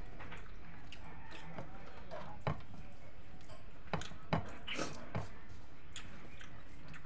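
Fingers mixing and squishing rice on a metal plate, with a few sharp clicks of fingers and rice against the plate, one about two and a half seconds in and a cluster of four between four and five seconds in.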